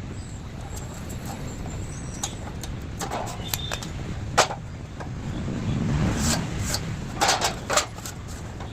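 A steady low rumble with scattered sharp knocks and clatters in two clusters, the sharpest about four and a half seconds in; the rumble swells briefly around six seconds.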